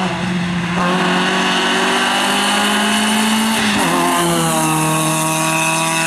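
Peugeot 106 rally car accelerating hard at full throttle, its engine note climbing steadily. Nearly four seconds in the note breaks and drops at an upshift, then climbs again.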